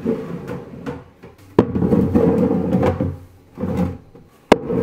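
White plastic storage bins being set down and slid along pantry shelves: a sudden scrape about a second and a half in that runs for about a second and a half, softer handling after it, and a sharp knock near the end.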